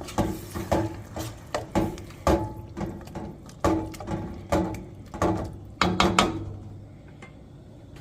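A spoon stirring and scraping in a kadai of gravy, knocking against the pan about twice a second, stopping about six seconds in.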